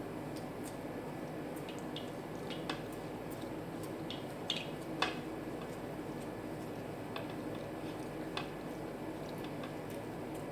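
Someone eating rice and curry: soft wet squishing and scattered small clicks, with two sharper clicks about halfway through.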